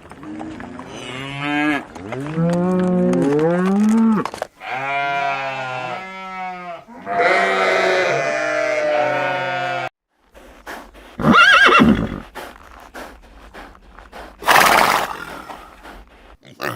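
Horse vocalizing: several long, wavering neighs, then a short high whinny, then a snort near the end.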